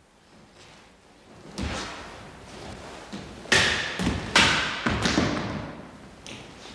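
Japanese sword cutting through rolled-straw tameshigiri targets: a series of about five sharp thuds and knocks, loudest in the middle, each trailing off with hall echo, as the blade strikes and cut straw sections drop onto the wooden floor.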